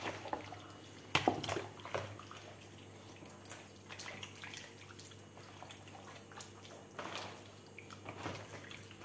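Wet squelching and smacking of bare hands kneading whole chickens in a thick red marinade in a plastic basin, in irregular short bursts.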